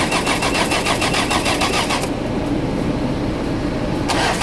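Engine being cranked by its starter motor in a fast, even chug of about ten pulses a second, an attempt to start an engine that cranks but won't run. The higher clatter drops away for about two seconds in the middle, then comes back.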